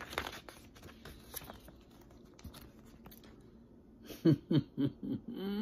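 Picture-book pages being handled and turned: soft paper rustles and small clicks. Near the end comes a quick run of short voiced sounds from the reader.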